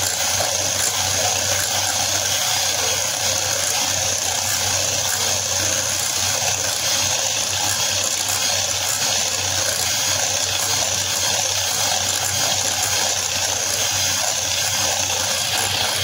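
Electric hand mixer running steadily at speed, its twin beaters whipping vegetable shortening and egg into a creamy batter in a glass bowl.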